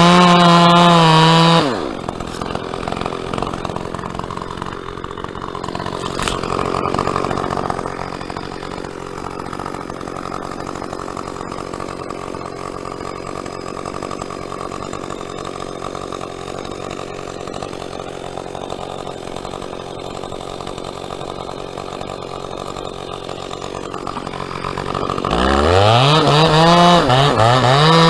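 Two-stroke chainsaw at full throttle, dropping back to idle about two seconds in and idling steadily, then revving up again to full throttle near the end.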